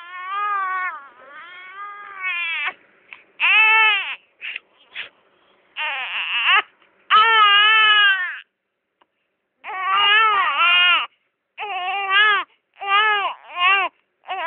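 Infant crying: a series of wailing cries, each rising and falling in pitch, broken by short pauses for breath.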